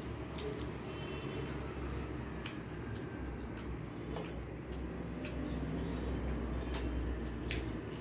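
Eating sounds: wet chewing and mouth clicks, with scattered short clicks as fingers pick at fish on a steel plate.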